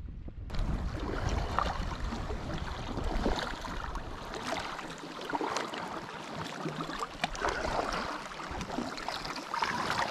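Choppy loch water lapping and splashing against shore rocks and a passing inflatable packraft, with paddle strokes and drips in the water. Wind rumbles on the microphone for the first few seconds, then drops away.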